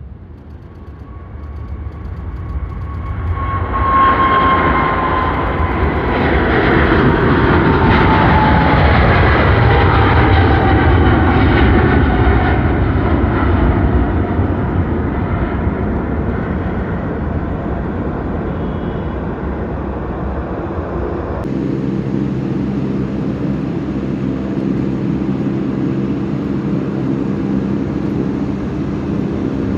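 Airliner passing close by, swelling over the first few seconds, its engine whine falling steadily in pitch as it goes past. About two thirds of the way through it cuts abruptly to a steadier, lower aircraft engine drone.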